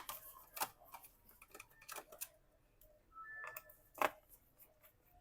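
Scattered small clicks and taps of a screwdriver working the screws out of a laptop's plastic bottom case, with a louder click about four seconds in.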